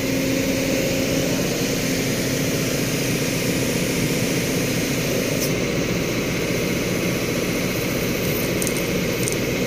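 Kobelco excavator's diesel engine running steadily as its arm and bucket are lowered onto the trailer deck, with a steady hum over it that fades about a second in.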